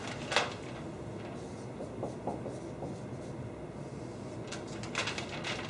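Dry-erase marker strokes on a whiteboard: short scratchy squeaks, one sharp one just after the start and a quick run of several near the end, over a steady room hum.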